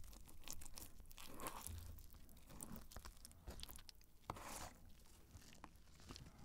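Faint scrapes and light taps of a table knife cutting through a thick cheese pizza and prying a piece loose, then the slice being torn free with its melted cheese pulling apart.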